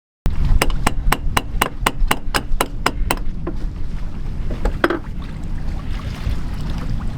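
Rapid hammer blows, about a dozen at roughly four a second, then a few slower knocks, over the steady low rumble of a boat under sail. This is a repair being hammered on the deck, where the anchor chain stripper has started to tear through.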